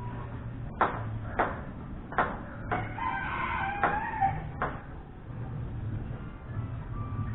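Table tennis ball clicking off paddles and table in a short rally, about four hits half a second apart, then a couple more clicks as the ball bounces away. A rooster crows in the background around the middle, a wavering call that drops in pitch at its end.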